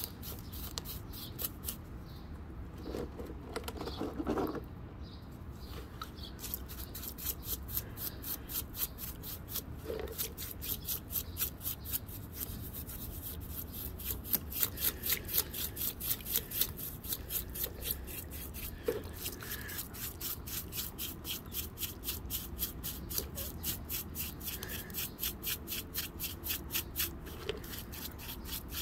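Bristle paintbrush scrubbing a wet, mud-covered fossil rock in a tray of muddy water, a rhythmic scratching of about four strokes a second. A short pitched sound comes about three to four seconds in.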